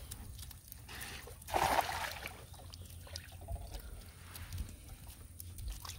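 Cast net thrown from a wooden canoe, landing on the water with a splash about a second and a half in, over quiet water lapping at the hull.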